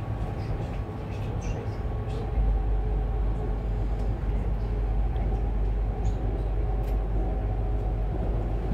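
Cabin noise inside an ES2G "Lastochka" electric multiple-unit train running at speed: a steady low rumble of the wheels on the rails with a faint even whine over it. The low rumble grows louder about two and a half seconds in.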